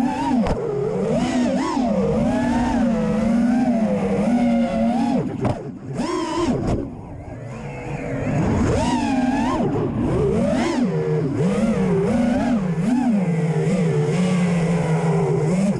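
Brushless motors and propellers of a Realacc Real5 FPV quadcopter in flight, heard on board: a buzzing whine that rises and falls in pitch with the throttle. About five seconds in the motors drop away for two or three seconds, with a few gusty rushes, then climb back to full whine.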